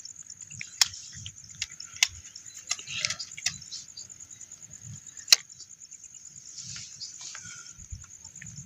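Insects chirring steadily at a high pitch, with several sharp clicks scattered through, the loudest about five seconds in.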